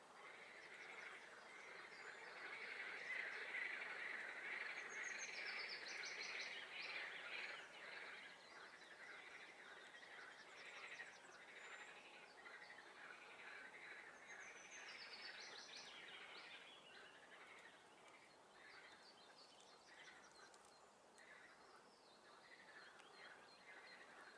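A dense chorus of frogs calling from a swamp, strongest in the first third and easing later. Over it, a songbird sings a short high trilled phrase twice, about ten seconds apart.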